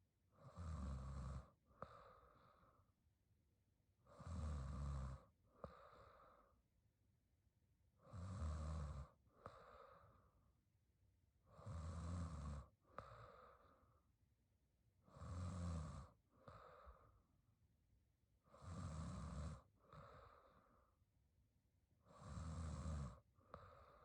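A young woman snoring in her sleep: slow, regular breaths about three and a half seconds apart, seven in all, each a snore of about a second followed by a shorter, softer breath.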